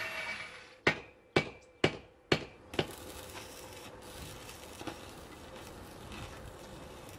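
Five sharp taps about two a second, then the steady hissing crackle of an electric welding arc on a steel pipe.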